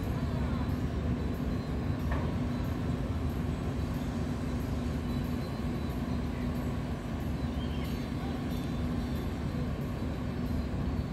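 Cruise ship Star Legend's engines and propellers running as it manoeuvres alongside the quay: a steady low rumble with a constant drone.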